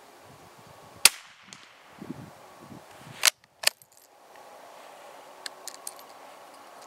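Norinco NS522 bolt-action .22 rifle firing one subsonic .22 Long Rifle round about a second in: a single sharp report. It is followed a couple of seconds later by two sharp clacks close together and a few light clicks near the end.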